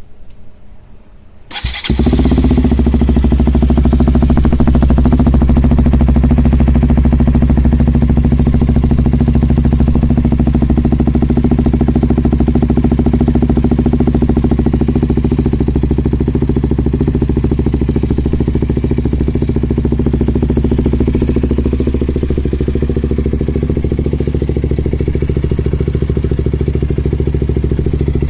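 KTM Duke 200's single-cylinder four-stroke engine starting up about a second and a half in, then settling into a steady idle through an LCI titanium silencer with its inner silencer (baffle) removed.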